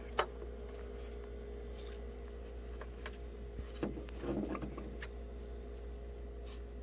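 A sharp click, then a few fainter clicks and a brief scrape from hand tools cutting the old tip off a pool cue, over a steady low hum.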